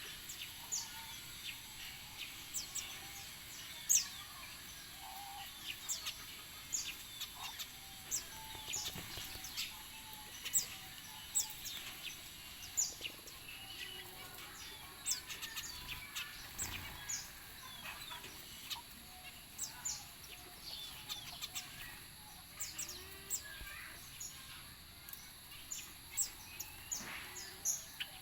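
Small birds chirping: many short, high chirps at irregular intervals, often several a second.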